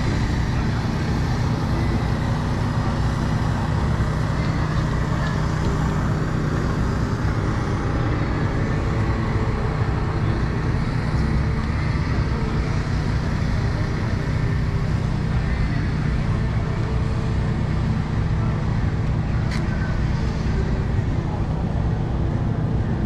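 A small engine running steadily at one constant speed, with no revving, over a murmur of voices; one short click near the end.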